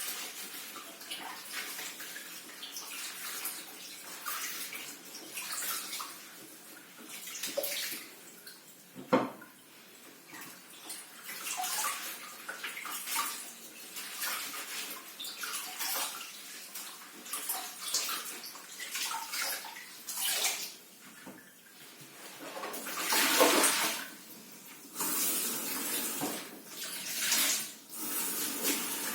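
Water running from a tap and splashing as vegetables are rinsed by hand in a sink. The flow comes and goes unevenly and is heavier near the end, with one sharp knock about nine seconds in.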